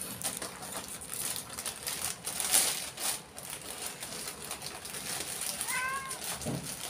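Plastic snack packets rustling and crinkling as they are handled and hung up, with light clicks and taps and a louder rustle about two and a half seconds in. Near the end a cat meows once, briefly.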